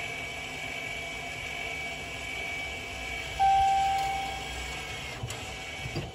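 Electric parking brake motor of a 2015 Jeep Cherokee's rear caliper running with a steady whine as the parking brake system resets after a rotor change. A loud electronic chime sounds about halfway through and fades, then sounds again at the very end.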